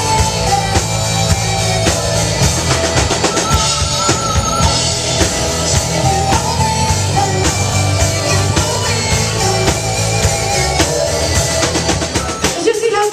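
Loud rock music with a driving drum-kit beat, played steadily throughout.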